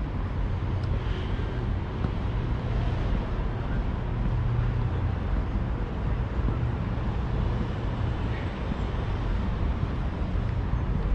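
Steady low rumble of city traffic, an even background roar with no single vehicle standing out.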